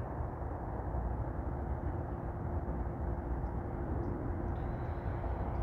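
Steady low-pitched background noise with a faint constant hum underneath, and no speech.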